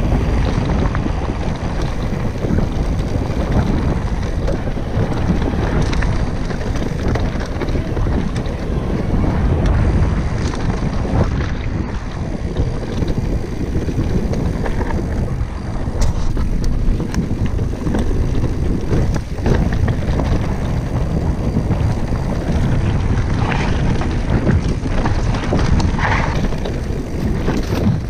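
Wind rushing over an action camera's microphone as a mountain bike rolls fast along a dirt trail, with tyre noise on the loose surface. A few knocks and rattles come from the bike over bumps.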